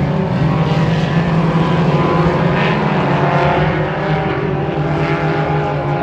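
Race car engines running on a dirt oval during hot laps: a loud, steady engine drone with shifting pitch.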